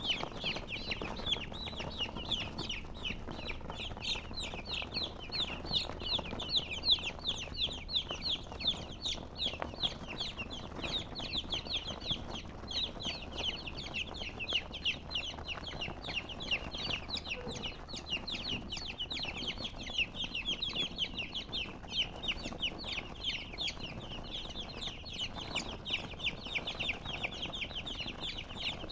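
Chicks peeping nonstop: a dense stream of short, high, falling chirps, several a second, overlapping as from a group of birds.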